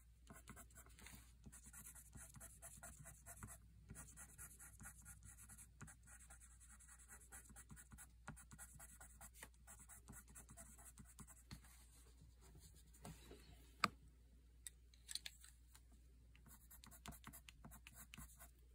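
Derwent Inktense watercolour pencil scratching faintly on paper in quick, short colouring strokes. A sharp click comes a little past the middle, with two smaller clicks soon after.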